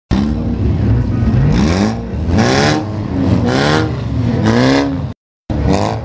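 Several racing saloon cars' engines revving together in a pack, their pitch rising and falling about once a second. The sound cuts out suddenly just after five seconds, then comes back briefly.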